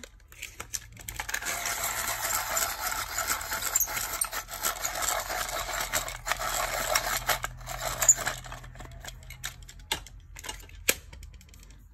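A Brutfuner coloured pencil turned in a small handheld sharpener: a dry scraping of the blade shaving the wood and core, from about a second in until about eight seconds, then thinning to a few scattered clicks.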